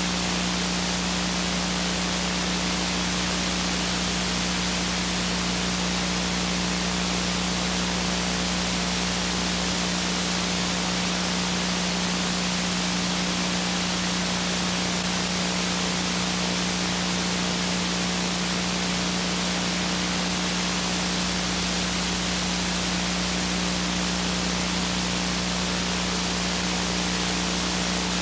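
Steady static hiss with a constant low hum underneath, the noise of a blank stretch of videotape.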